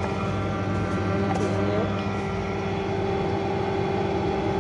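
Small electric screw oil press (expeller) running steadily with a constant motor hum while pressing roasted sesame seeds into oil.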